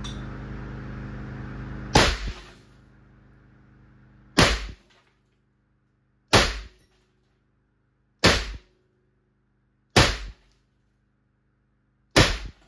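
Six shots from a BinTac BW S45 .45-calibre big-bore air rifle with a 20-inch barrel, fired with 220-grain pellets, each a sharp crack with a short ringing tail, about two seconds apart.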